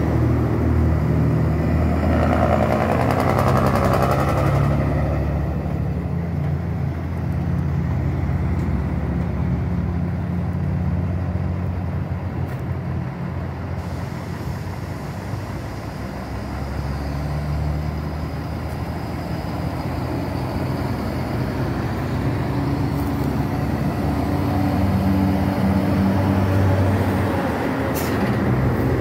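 Diesel cattle trucks driving past on the highway: a low, steady engine drone that swells and eases as the trucks go by.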